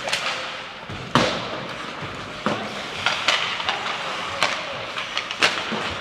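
Ice hockey play: about five sharp cracks and knocks of sticks, puck and boards, the loudest a little over a second in, over a steady hiss of skates on the ice.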